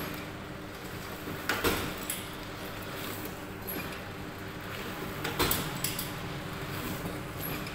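Double-die paper plate (dona pattal) making machine running: a steady motor hum, with a press stroke of the dies about one and a half seconds in and again about five and a half seconds in, each a short run of knocks and clanks.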